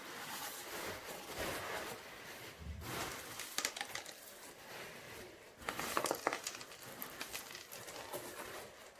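Crumpled white packing paper rustling and crinkling as it is pulled by hand out of a cardboard box, with louder crackles about three and a half seconds in and again around six seconds.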